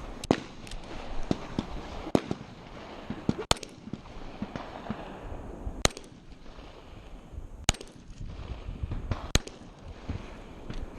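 Handgun shots on a firing range: about six single sharp reports, fired one at a time roughly every one and a half to two seconds, with fainter clicks and knocks between them.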